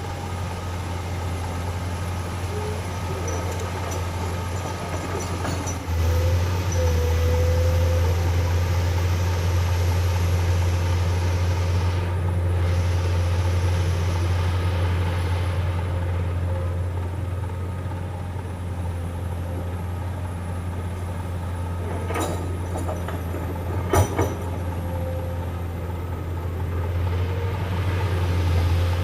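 Heavy diesel earthmoving machinery, an excavator and dump truck, running with a steady low engine hum that grows louder about six seconds in. Two short sharp knocks come near the end.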